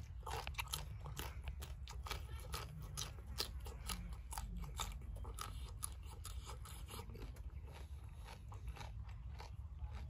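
Close-up crunching and chewing of crisp raw food, a raw yardlong bean being bitten off and chewed: rapid crisp crunches that thin out over the last few seconds, over a steady low rumble.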